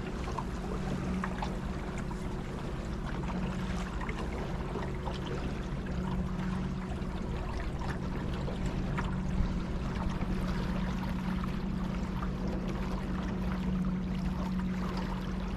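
Boat motor running at a steady hum, with water rushing and splashing along the hull.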